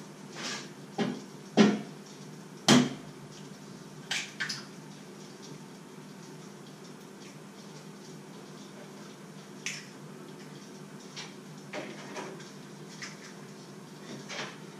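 Kitchenware clattering: scattered sharp knocks and clinks of pots and dishes. The loudest come in the first three seconds and a pair follows about four seconds in, then lighter ones, all over a faint steady low hum.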